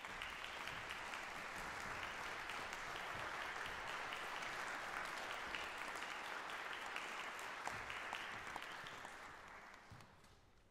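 Audience applauding, a dense patter of many hands clapping that fades away over the last second or two.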